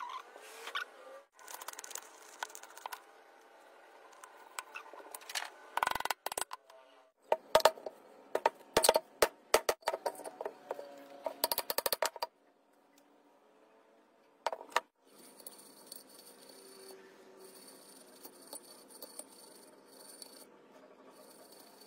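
Fan motor parts being handled: a run of sharp metal clicks and knocks, densest in the middle, as the ball bearing and the wound stator are worked into the motor housing. Near the end only a faint steady hiss remains.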